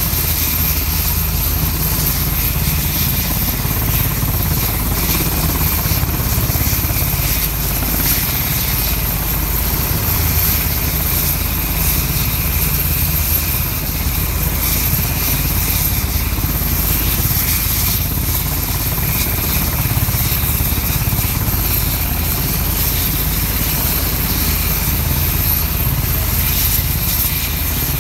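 Sikorsky UH-60 Black Hawk helicopter running on the ground with its rotors turning, warming up before takeoff: its twin turboshaft engines and rotor make a loud, steady noise with a thin high whine over it.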